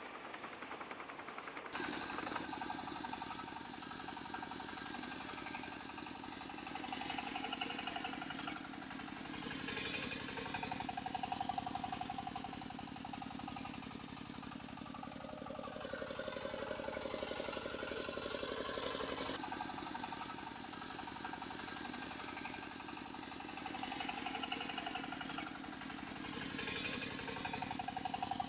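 Engine sound of a remote-control model vehicle running, a steady fast knocking chug like a diesel engine, with held tones rising and falling over it. The sound changes abruptly about two seconds in.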